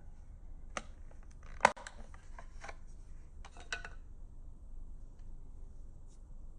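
Small hard clicks and knocks from a Sony pocket radio and tools being handled during a teardown, one sharper knock about one and a half seconds in and a quick run of clicks near four seconds. After that the clicks stop and only a faint low hum remains.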